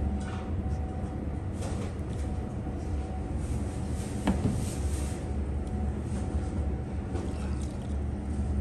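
Working kitchen background: a steady low rumble and faint hum, with scattered light knocks and clicks and one sharper click about four seconds in.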